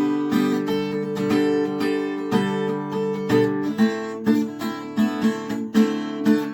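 Acoustic guitar strummed in a steady, even rhythm of about three strokes a second, playing chords with no singing.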